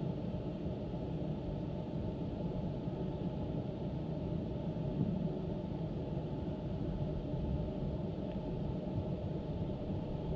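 Steady low rumbling noise with no distinct events, covering the sounds of the match: a fault in the recorded audio.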